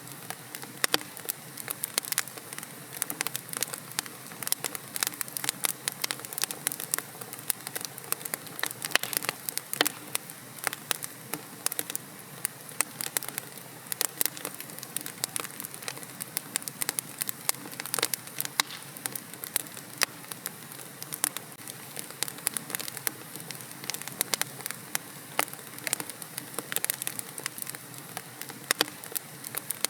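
Wood fire burning in a fireplace, crackling and popping irregularly over a low, steady hiss of the flames.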